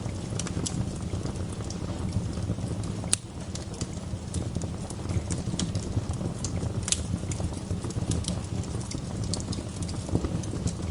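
Wood fire crackling: irregular sharp pops and snaps over a steady low rumble of the burning fire, with one louder pop about three seconds in.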